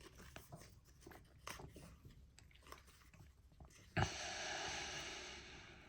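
Baseball trading cards and their foil pack wrappers being handled: faint small clicks and rustles, then about four seconds in a sudden crinkly rustle that lasts nearly two seconds.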